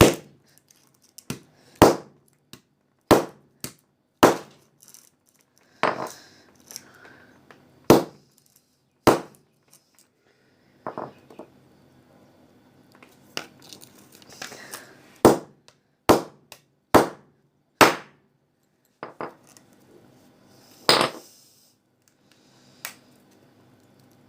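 A tool striking and forcing a mobile phone's hard casing as it is broken open: a string of about fifteen sharp knocks at irregular intervals of one to two seconds.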